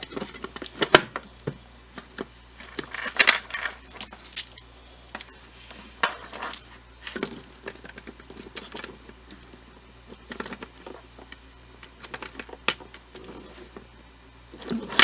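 Metal cable connectors clinking and rattling as they are handled, pushed into their sockets and their threaded screw collars turned: a scatter of light clicks and jingles, busiest in the first half.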